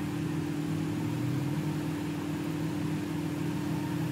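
An engine idling with a steady, even hum.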